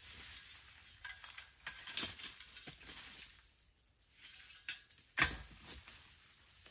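Footsteps and brushing through dry bamboo litter and stalks: irregular crunching, crackling and snapping of dry leaves and twigs, with the loudest snap about five seconds in.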